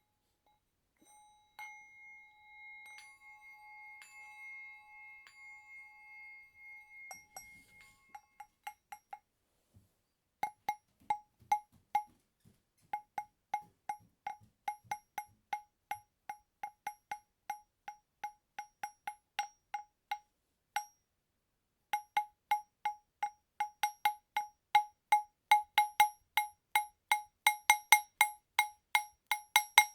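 A small metal ritual bell or bowl is struck once and left ringing for several seconds with a slightly pulsing tone. It is then struck over and over at the same pitch in short, quickly stopped strokes, about two a second. After a brief pause the strokes come faster and louder.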